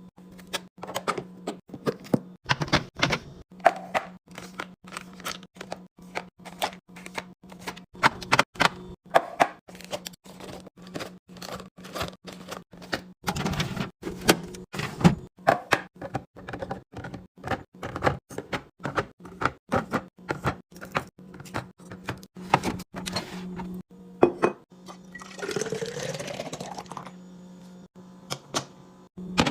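Containers and food items being set down, tapped and clinked onto fridge shelves: many quick knocks and clicks, over a steady hum. Near the end, liquid is poured into a container, its pitch rising as it fills.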